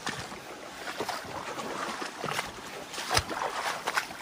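A shallow mountain stream trickling over rocks, with footsteps knocking irregularly on the stones of the streambed, the loudest about three seconds in.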